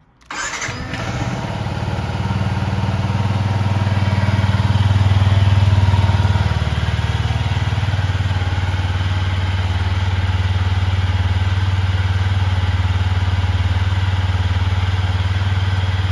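Yamaha XSR125's single-cylinder four-stroke engine starting almost at once, then running steadily at idle. It runs a little higher for the first few seconds and settles to an even idle about six seconds in.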